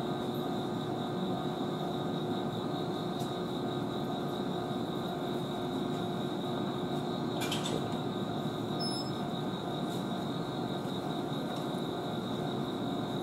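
Kintetsu electric train idling: a steady, even hum with a few held tones, and one sharp click about seven and a half seconds in.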